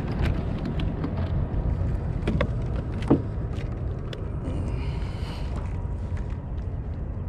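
Steady low rumble of wind on the microphone, with a few sharp clicks and knocks as a small sheepshead is handled and unhooked over a kayak, and a brief hiss about five seconds in.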